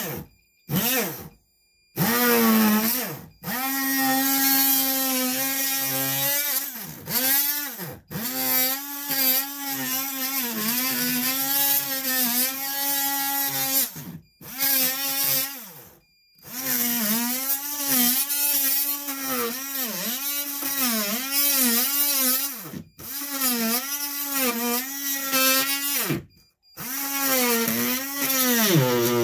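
Oscillating multi-tool running off a 12-volt car battery, cutting into a wooden wall corner: a buzzing whine whose pitch keeps sagging and recovering as the blade loads. It runs in stretches, stopped briefly several times as it is switched off and on.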